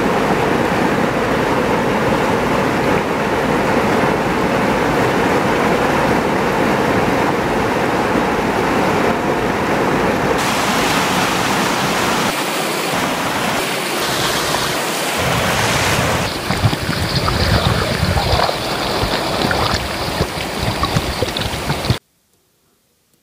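Fast-flowing stream water rushing over a small weir and then through foaming white-water rapids: a loud, dense, steady rush that changes character abruptly twice. It cuts off suddenly near the end, leaving near silence.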